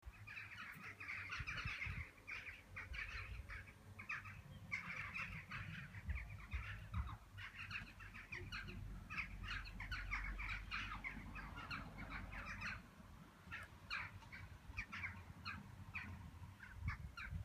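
Birds calling outdoors: a dense, irregular chatter of many short calls, over a low rumble.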